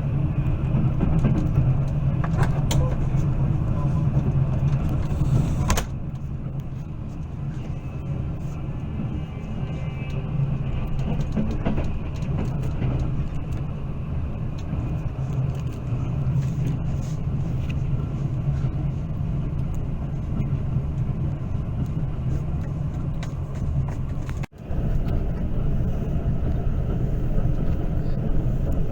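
Moving train's running noise, a steady low rumble. The level drops suddenly about six seconds in, then jumps back up after a brief break near the end.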